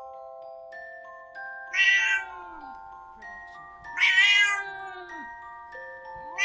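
Cat meowing twice, each meow about half a second long and some two seconds apart, with a third starting at the very end, over soft chiming music with held notes.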